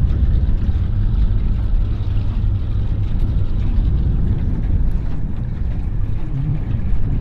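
Small runabout boat's motor running steadily as the boat moves through shallow water, a loud low rumble with a fluctuating buffeting that is partly wind on the microphone.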